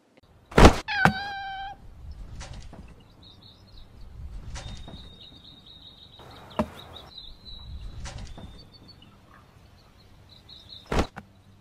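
A cat meows once, a short, flat-pitched call about a second in, just after a sharp knock. Faint high squeaking and a few more bumps and knocks follow.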